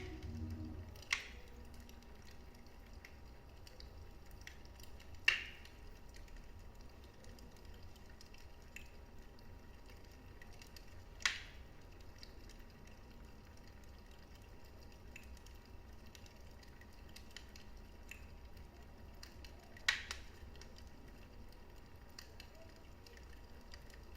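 Wood fire burning in a fireplace: a low steady rumble with scattered small crackles and four sharp pops, about one, five, eleven and twenty seconds in.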